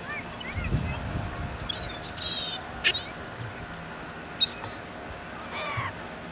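Gulls calling on a beach: a scatter of short, high calls, some falling in pitch and one quick run of calls about two seconds in. A brief low rumble about a second in.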